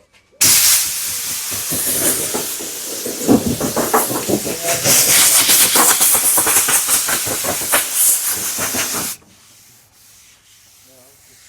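Compressed-air blow gun blowing sanding dust off a freshly sanded body panel: a loud, fluttering hiss that cuts off sharply about nine seconds in.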